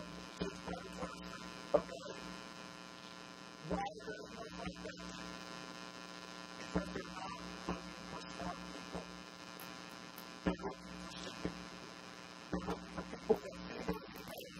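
Steady electrical mains hum, a buzzy stack of tones, broken every few seconds by short bursts that sound like voices or handling noise.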